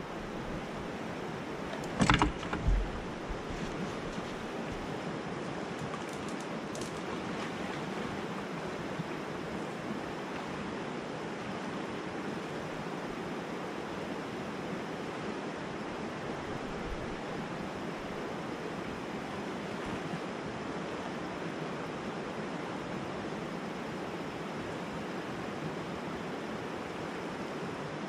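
Steady rush of a swift, rocky river flowing. A couple of sharp knocks come about two seconds in.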